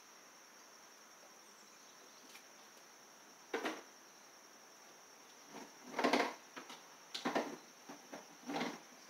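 A few short knocks and clatters, about four spread over several seconds, of hands working on a lawn tractor's engine and its parts.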